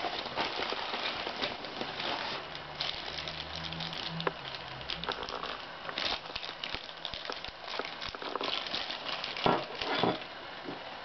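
Thin plastic mailer bag and a small plastic packet crinkling and rustling as they are handled and opened, with irregular crackles. The loudest crinkles come near the end.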